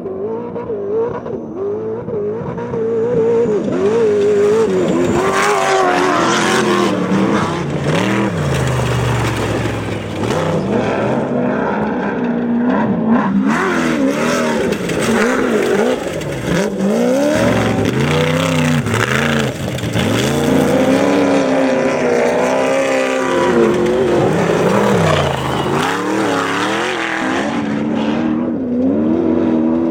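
Off-road desert racing vehicle's engine running hard, its pitch climbing and dropping again and again as the throttle is worked, over a steady rushing noise.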